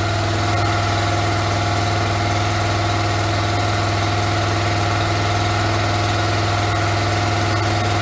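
Pressure washer engine running steadily while the 40-degree jet on the pole sprays, with the hiss of the water spray over a constant, even drone.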